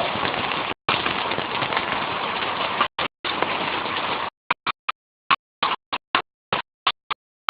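Steady hiss of a heavy downpour during a hail storm. After about four seconds the recording breaks up into short snatches of the hiss, with dead silence between them.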